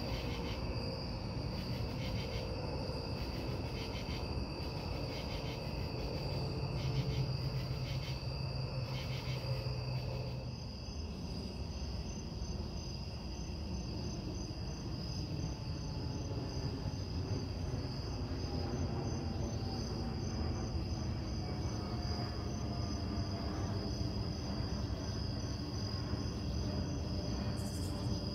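Night insects, crickets, trilling steadily at a high pitch, with a pulsing chirp that repeats about once a second for the first ten seconds or so. Under them runs a continuous low rumble, with a faint, slowly falling whine in the second half.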